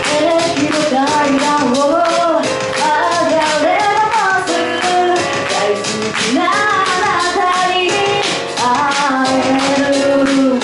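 A woman singing a pop song into a handheld microphone over accompaniment with a steady beat.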